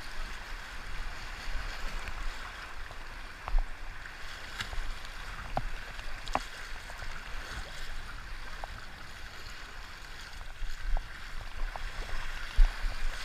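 Fast flood-level river water rushing around a kayak: a steady hiss with scattered small splashes and drips throughout.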